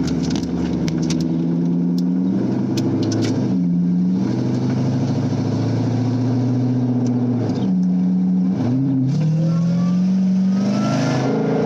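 LS2 V8 of a C6 Corvette accelerating at light throttle, loud through an exhaust with gutted catalytic converters, an X-pipe and a Borla axle-back. The engine note climbs and drops sharply a few times as it shifts through the gears, with a longer rising pull near the end.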